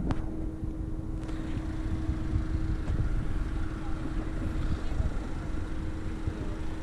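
Outdoor airport-apron ambience: a steady mechanical hum under an irregular low rumble, with a sharp click at the start.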